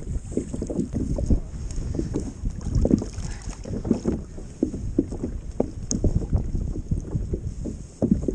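Wind buffeting the microphone in irregular low rumbles, with small waves slapping against a kayak hull.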